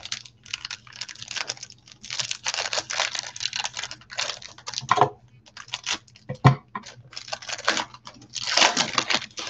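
Foil wrapper of a 1992 Pro Set football card pack crinkling and tearing as gloved hands open it, in quick irregular crackles with a louder rip near the end.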